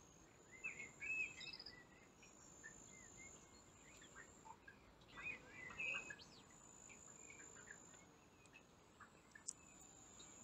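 Faint birdsong: short chirping calls in two spells, during the first couple of seconds and again about five to six seconds in, over a steady high-pitched insect trill like a cricket's.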